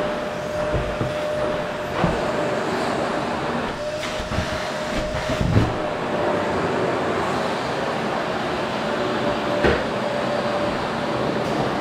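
Qilive vacuum cleaner running steadily: a constant rushing of air with a steady motor whine, broken by a few brief knocks.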